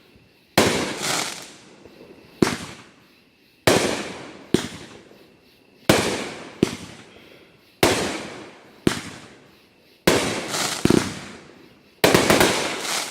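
Fireworks going off in a steady string of about ten sharp bangs, one every second or two, each trailing off in a rumbling echo; the last couple come with a spray of crackles.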